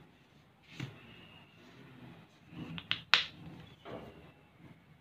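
Light tabletop handling noises: a few soft knocks and one sharp click a little after three seconds in, as a plastic shampoo bottle is picked up beside a ceramic bowl with a metal spoon resting in it.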